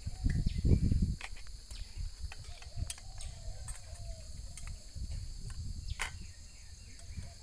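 Steady high chorus of crickets and insects. A low rumble on the microphone is loudest around the first second, and a few sharp clicks are scattered through.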